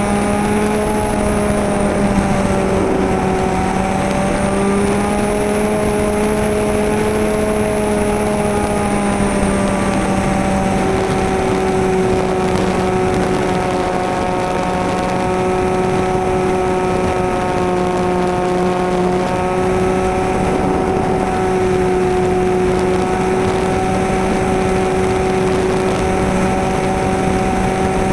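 Carson Cessna 182 RC model plane's motor and propeller heard from a camera on the plane in flight: a steady drone that shifts slightly in pitch a few times, with a faint high whine rising and falling in the first ten seconds and a hiss of rushing air.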